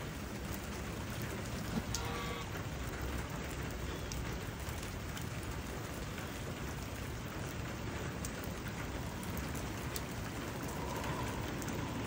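Steady rain falling on grass and puddles, an even hiss with scattered sharp drop ticks.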